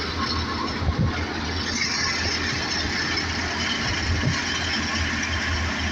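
Wheat-harvesting machinery running steadily: a constant engine hum under a broad, even mechanical noise.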